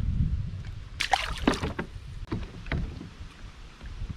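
Kayak on the water: a low rumble, then a burst of short splashing and knocking sounds about a second in, followed by a few single sharp knocks.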